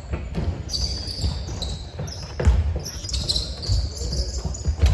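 A basketball being dribbled on an indoor court, irregular bounces, with shoes squeaking on the floor.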